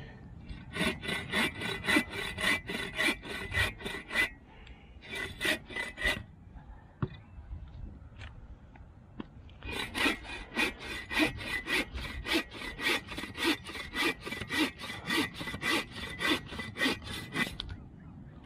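Hand saw cutting through an old, rotten log, in quick, even back-and-forth strokes. It comes in two long runs with a short burst and a pause between them.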